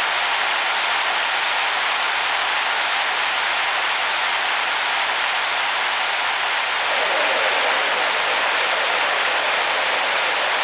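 A steady, even hiss of noise, like rain, growing a little fuller about seven seconds in.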